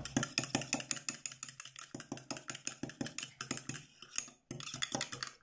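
Metal teaspoon briskly whisking a sour cream, egg and ketchup mixture in a small ceramic cup, clicking rapidly and steadily against the cup's sides and bottom.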